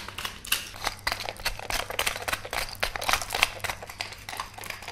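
Wooden pepper mill being twisted by hand, grinding peppercorns: a rapid, irregular run of crisp clicks and crunches, several a second.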